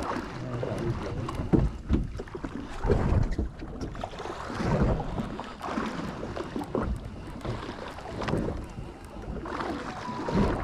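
Wind buffeting the microphone and water slapping against the hull of a small fishing boat, an uneven low rumble with scattered light knocks.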